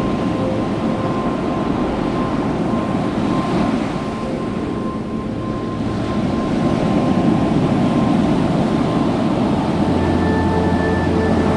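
Steady rumbling noise of wind and surf on a beach. Faint held tones run through it and change to a new set about ten seconds in.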